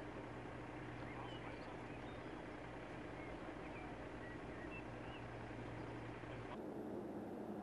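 Steady low hum of an idling vehicle engine, with short bird chirps scattered over it. The background changes abruptly near the end.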